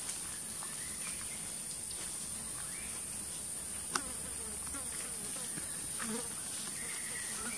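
Steady high-pitched drone of insects such as cicadas or crickets, with one sharp click about four seconds in and a few faint short chirps.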